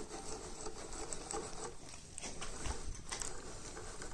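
Soft rubbing and a few light clicks and knocks from a homemade lathe's slide and handles being worked by hand.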